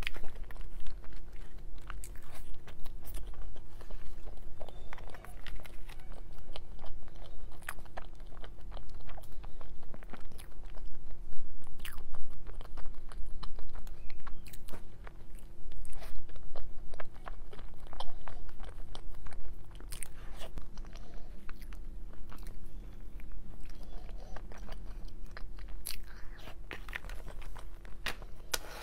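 Close-miked eating: soft layered dessert cakes bitten and chewed, with many small sharp, irregular clicks and smacks from the mouth. A faint steady hum runs underneath.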